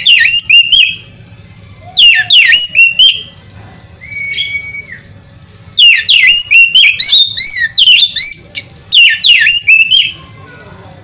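Oriental magpie-robin singing: four loud bursts of rapid, sharply down-slurred whistled notes, separated by short pauses, with one single held whistle in the gap about four seconds in.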